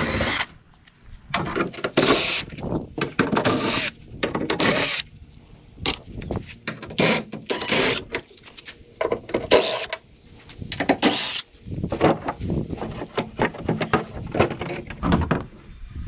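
Cordless drill/driver with a T40 Torx bit, backing out the screws of a truck's tailgate inner panel in a series of short runs one after another, with brief pauses between screws.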